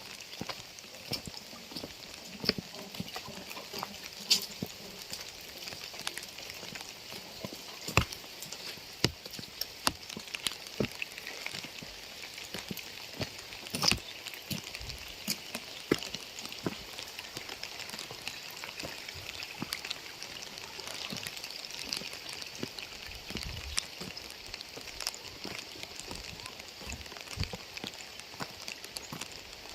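Steady rain, a constant hiss broken by many sharp, irregular taps of drops striking nearby surfaces.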